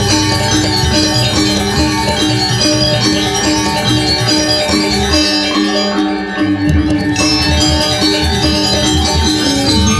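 Balinese gong kebyar gamelan playing: many bronze metallophones struck with wooden mallets, ringing over a deep low pulse. The low pulse stops for about a second just past the middle, then comes back.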